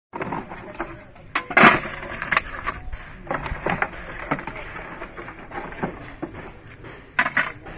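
Irregular clicks, knocks and scraping as crabs and ice are handled in a plastic fish box and dropped into a steel tray. The loudest knocks come about one and a half seconds in and again a second later.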